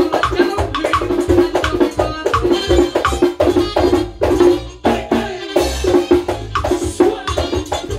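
Dominican tambora drum played with a stick and bare hand in a fast, driving merengue rhythm, crisp rim clicks among the drum-head strokes, over a steady bass line. The beat breaks off briefly about five seconds in.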